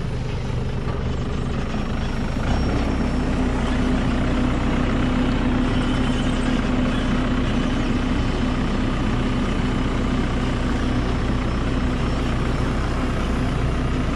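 JCB telehandler's diesel engine running, speeding up about two and a half seconds in and holding a steady, higher note as the hydraulics raise the loader bucket.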